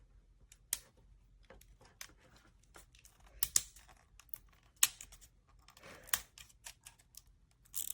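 Hands handling a hot air brush dryer that is switched off: scattered sharp clicks and taps with brief crinkling rustles, the loudest click a little before the five-second mark.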